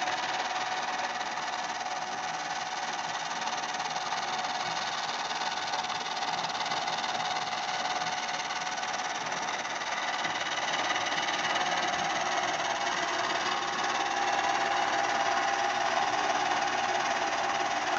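AndyMark electric gearmotor running steadily, driving a roller chain and toothed timing belts over plywood pulleys: a constant whine over an even mechanical whir.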